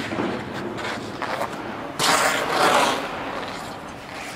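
Figure skate blades scraping across rink ice, with one loud scrape about two seconds in that lasts about a second.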